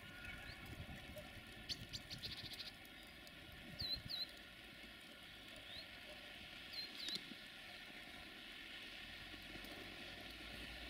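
Small birds chirping: a quick trill about two seconds in, then a few short sweeping chirps around four and seven seconds. These sit over a faint, steady hum from the freight train's electric locomotive still far off down the line.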